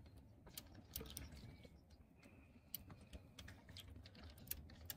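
Near silence with a few faint, scattered small clicks and ticks.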